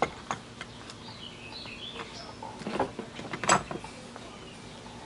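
A few sharp metal clicks and knocks from hand tools working on the old cast-iron jointer's nuts and bolts, the loudest about three and a half seconds in. Birds chirp in the background between about one and two and a half seconds in.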